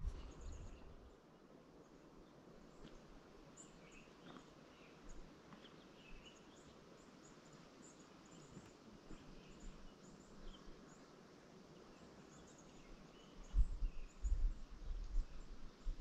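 Faint outdoor ambience: a quiet steady hiss with scattered short, high chirps. A few low thumps and rumbles come in about two and a half seconds before the end and are the loudest part.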